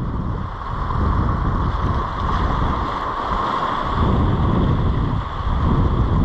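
Wind buffeting the microphone over the steady wash of sea on the rocks, a continuous rush with gusty low rumbles.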